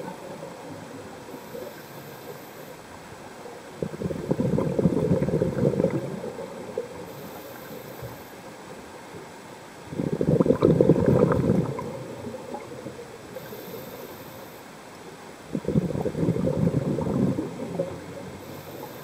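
Scuba diver's exhaled bubbles gurgling out of the regulator underwater, in three bursts of about two seconds each, roughly six seconds apart, with a faint high hiss of the regulator on each inhale between them.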